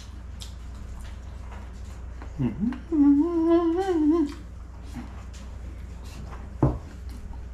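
A man hums a drawn-out, wavering "mmm" through a mouthful of food, a sound of relish at the taste, starting about three seconds in and lasting just over a second, with a short vocal sound just before it. A steady low hum sits underneath.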